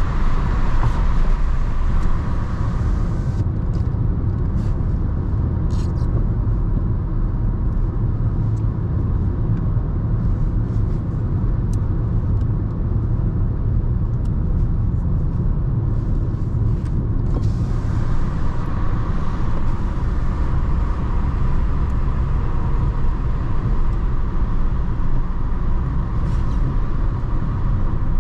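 Inside the cabin of a moving 2004 Volkswagen Golf Mk5 with a 1.6 FSI naturally aspirated four-cylinder petrol engine: engine and road noise make a steady low rumble. A higher tyre hiss drops away about three seconds in and comes back about two-thirds of the way through.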